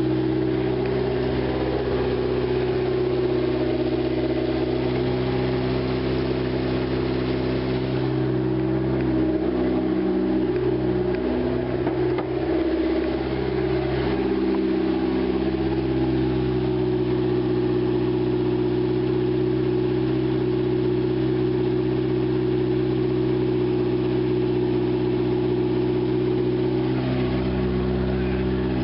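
Acura four-cylinder engine idling steadily on a cold start, running now that the spark plug wires are in the right firing order. Its note wavers a few times about ten to fifteen seconds in.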